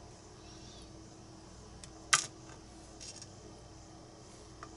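Small metallic clicks from lock pins and tools being handled while a pin-tumbler lock core is taken apart: one sharp click about two seconds in, with a few faint ticks around it.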